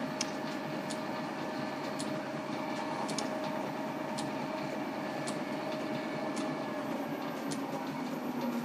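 A steady machinery hum with a faint light tick about once a second.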